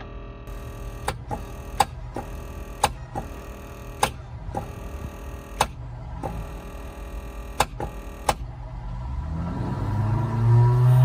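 Cessna 172M's electric starter motor whirring with the key held at start, with sharp clicks now and then; near the end the whir rises in pitch and gets louder. The starter is being tried to see whether its hammer-tapped Bendix drive will engage the flywheel.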